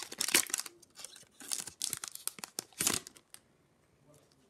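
Foil trading-card pack wrapper being torn open and crinkled by hand, in irregular bursts of crackling that stop about three and a half seconds in.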